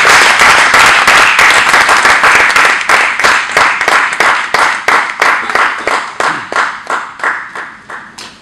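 Audience applauding, dense at first, then thinning into separate claps that fade away near the end.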